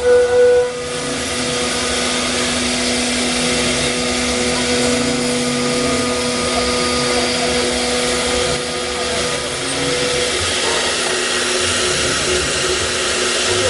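6 kW HSD spindle of a double-head CNC router running, a steady whine over a constant hiss. The whine drops out about ten seconds in while the machine noise carries on.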